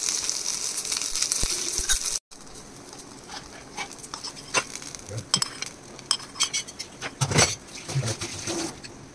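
Curry leaves sizzling loudly in hot oil in a small iron kadai, stopping abruptly about two seconds in. Then a metal spoon clinks and scrapes against a glass bowl, irregularly, as the tempering is stirred into a thick white mixture.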